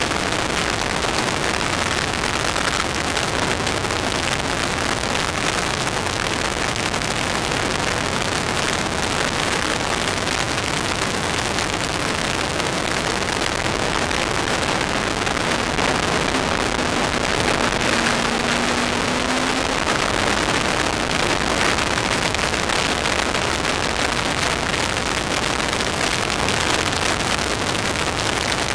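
Steady, loud rush of wind and road noise on the microphone in the open cockpit of a Kawasaki ZX-10R-engined MK Indy R driven at speed on track, with the engine sound mixed into the hiss. A faint rising tone shows up briefly around the middle.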